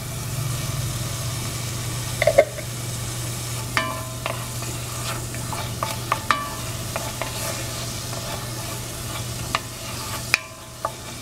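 Minced garlic sizzling in hot oil in an enamelled cast-iron Dutch oven, browning, while a wooden spatula stirs it and scrapes the pot bottom with scattered light scrapes and knocks. A steady low hum runs underneath.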